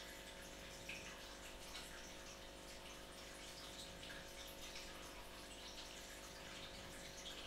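Near silence: faint room tone, a steady low hum and hiss, with a few small clicks.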